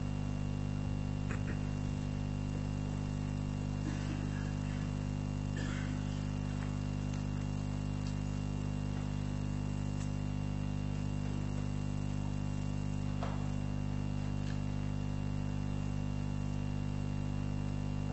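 Steady low electrical hum on the recording, with a few faint knocks and rustles scattered through it.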